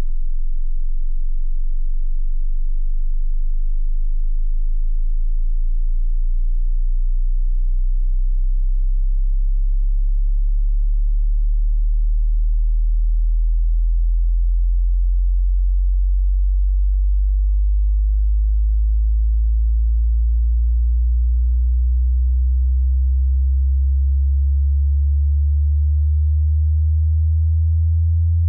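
Loud, steady, very low-pitched electronic sine-wave drone. More low tones join it one at a time, about every five to eight seconds, thickening it into a deep hum.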